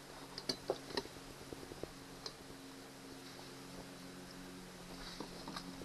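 Light metallic clicks and taps of a screwdriver working the latch parts of a camper door lock: several in the first second, one at about two seconds and a few more near the end, over a faint steady hum.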